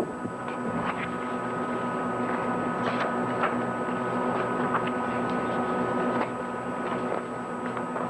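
Steady electrical hum, with irregular soft clicks and rustles of things being handled on a table next to a hand-held microphone.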